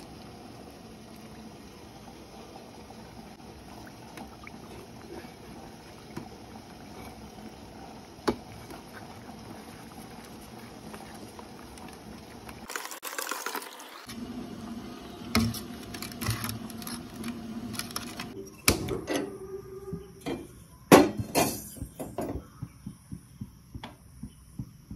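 Ragi flour and water being stirred with a steel ladle in a steel bowl: liquid sloshing and the ladle scraping the bowl. Later comes a run of sharp clanks of steel utensils, the loudest about two-thirds of the way through, then light ticks about two a second near the end.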